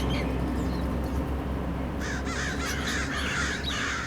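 Many crows cawing over one another, starting about halfway through, over a steady low hum.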